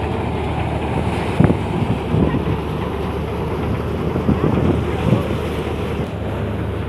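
Motorised paddy thresher running steadily: a constant low drone with the rush of straw and grain passing through it. A few brief knocks come about a second and a half in and again around four to five seconds.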